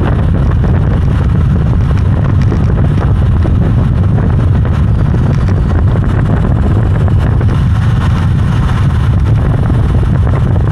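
Wind buffeting the action camera's microphone on a fast road-bike descent: a loud, steady, low rumble with no break.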